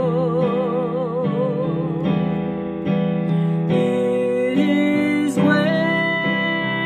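A woman singing a slow worship melody, holding long notes with vibrato, over an instrumental accompaniment of sustained chords.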